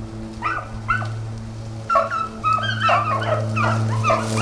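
Pack of beagles baying on a rabbit's trail. Scattered calls come first, then several voices overlap from about two seconds in, over a steady low hum.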